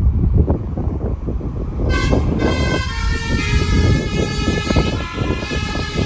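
Multi-tone 'telolet basuri' bus horn of the Ken Arok bus starting about two seconds in and playing a tune in steps between chords, over the rumble of wind on the microphone of a moving motorcycle.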